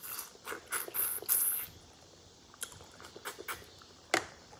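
Close-up eating sounds of crawfish: shells crackling as they are peeled by hand, with wet mouth smacks. There is a dense run of crackles and smacks in the first second and a half, then scattered small clicks and one sharp click about four seconds in.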